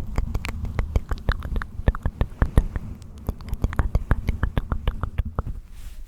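Rapid, irregular tapping and clicking on a microphone up close, as an ASMR trigger, over a steady low handling rumble; it stops suddenly about half a second before the end.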